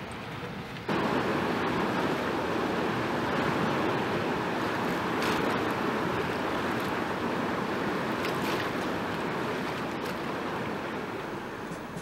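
River rapids: whitewater rushing steadily. The sound cuts in suddenly about a second in.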